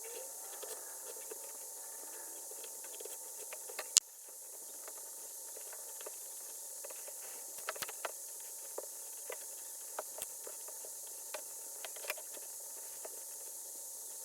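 Light ticks and scrapes from hands working a leather baseball glove, over a steady hiss, with one sharp click about four seconds in.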